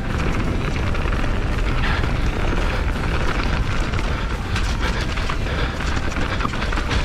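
A YT Jeffsy 27.5 enduro mountain bike riding fast down a rough trail: continuous tyre rumble, rattling knocks and clicks from the bike, and heavy wind buffeting on the helmet-mounted GoPro's microphone.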